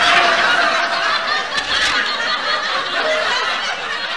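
A small group of people laughing and cheering at once, loud overlapping laughter and shouts that ease off a little toward the end.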